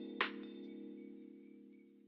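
Background music ending on a held chord, struck with a sharp percussive hit just after the start and then fading steadily away.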